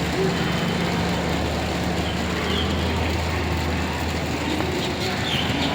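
A steady low mechanical hum, like an idling engine or running machine, over a background din; the hum fades out about five seconds in.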